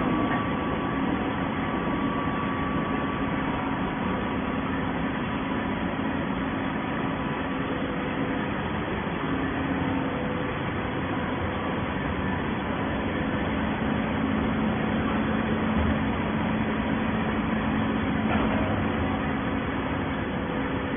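Horizontal baling machine and its feed conveyor running: a steady machine hum with a few faint held tones.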